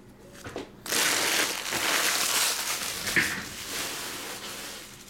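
Empty trading-card pack wrappers crumpled by hand: a loud crinkling that starts about a second in, with a sharper crackle near the middle, then tails off.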